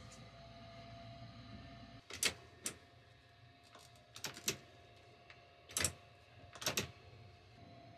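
Sharp plastic clicks and rattles from a wall air vent's airflow adjustment lever being slid by hand, in several separate clicks about a second apart. A faint low rumble stops about two seconds in.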